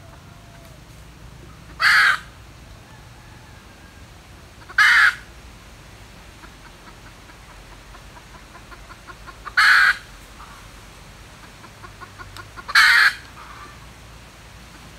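Junglefowl hen cackling: four short, loud, harsh calls a few seconds apart, the last two led in by quick soft clucks.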